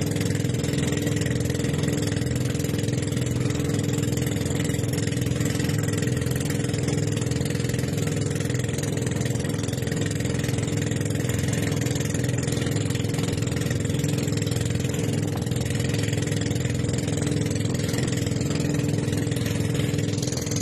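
Boat engine running steadily under way, an even hum at a constant pitch with a steady hiss of water and wind over it.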